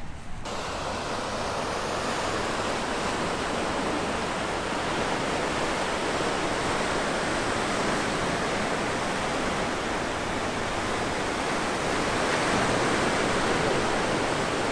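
Ocean surf breaking on a rocky shore: a steady, even wash of waves, a little louder near the end.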